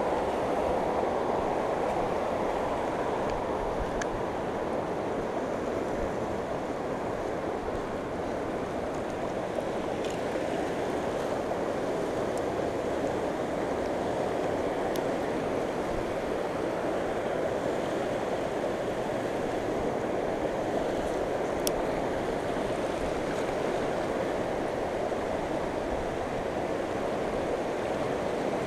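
Flooded river rushing fast in a steady, even wash of water noise, with a few faint clicks.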